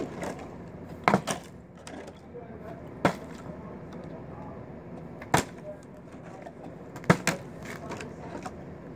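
Partly filled plastic water bottle being flipped and landing hard on the ground, about six sharp knocks. Twice a knock is followed quickly by a second one as the bottle bounces or tips over.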